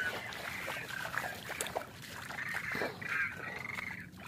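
Repeated duck-like quacking calls, over water sloshing and twigs and brush rustling and snapping as people wade and set branches in shallow water.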